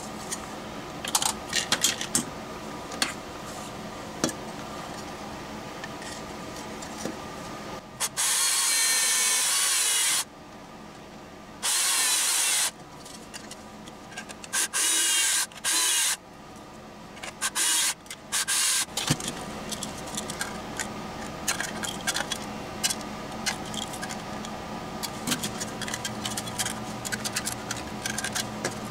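Cordless drill-driver running in short bursts, the first about two seconds long and then four shorter ones, driving screws to fasten a speaker-terminal plate to an aluminium project box. Sharp clicks and taps of metal parts being handled come before and after the runs.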